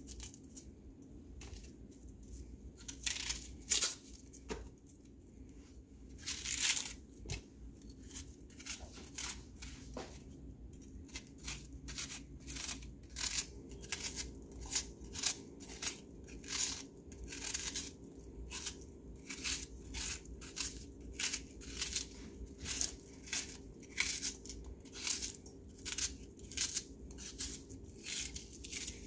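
Kitchen knife cutting crisp vegetables held in the hand, first a green bell pepper and then a raw onion: short, crisp cutting strokes, a few scattered at first, then a steady run of about two a second.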